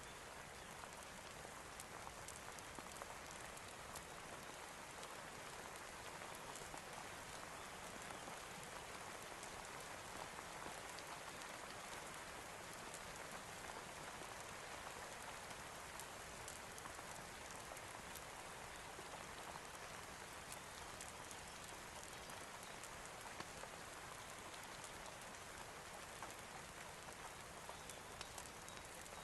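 Steady rain falling, an even hiss with scattered faint ticks of drops throughout.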